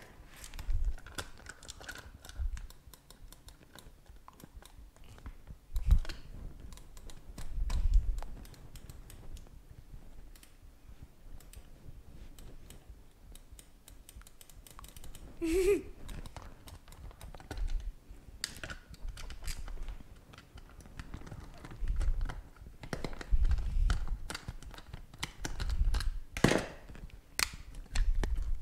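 Small, irregular plastic clicks and taps as a screwdriver works inside a wireless mouse's plastic shell and the parts are handled, with occasional dull knocks on the tabletop.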